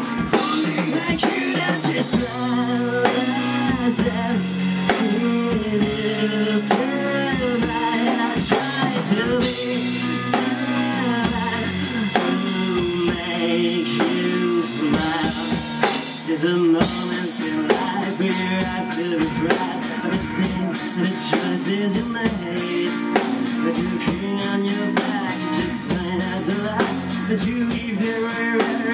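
A live rock band playing electric guitars, bass guitar and drum kit. The cymbals grow louder a little past halfway.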